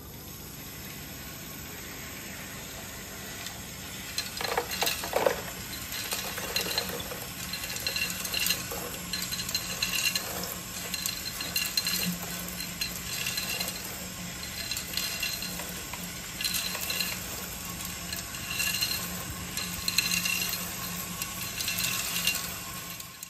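LESU RC concrete mixer truck discharging: its drum drive hums steadily while a wet mud-and-gravel mix slides down the chute into a plastic tub with a gritty, sloshing pour and small stones clattering. The pour picks up about four seconds in, and a short high squeak repeats about every two seconds.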